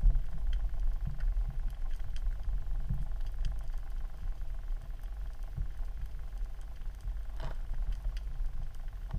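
Underwater sound of sea water moving, heard through a GoPro's waterproof housing held just below the surface: a steady muffled low rumble with faint scattered clicks, and a brief sharper sound about seven and a half seconds in.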